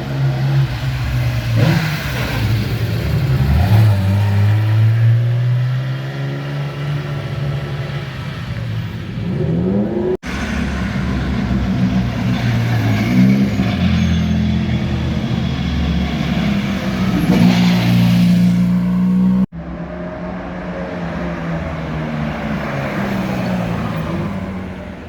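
Historic sports-car engines accelerating and revving as cars drive past, in three short takes cut together; the engine pitch rises and falls with the throttle and gear changes.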